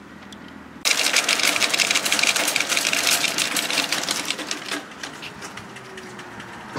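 Metal shopping trolley rattling loudly as its wheels roll over paving, a dense fast clatter that starts suddenly about a second in and eases off after a few seconds.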